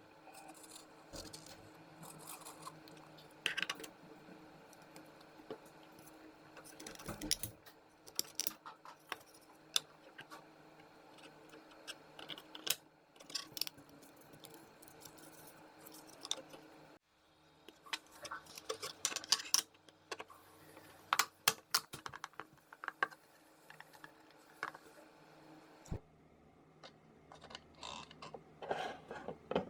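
Irregular light clicks and clatter of small hard parts being handled.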